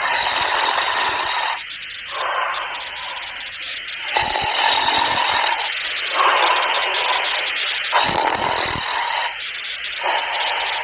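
A person snoring: three loud snores on the in-breath, about four seconds apart, each followed by a quieter breath out.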